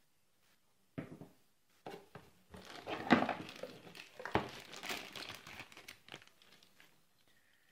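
Clear plastic packaging bag crinkling and rustling as hands unwrap a cable from it, starting about a second in, loudest in the middle and fading near the end.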